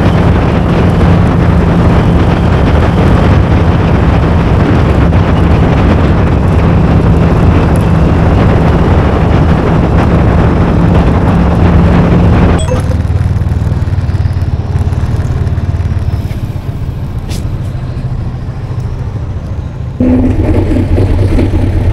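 Motorcycle engine running steadily under way, with wind and road noise over the microphone. About two-thirds through, the sound cuts suddenly to a quieter, lower engine note, and it jumps louder again near the end.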